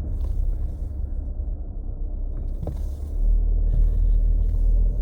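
Low, steady rumble of a moving car heard from inside the cabin, road and engine noise, swelling a little about three seconds in.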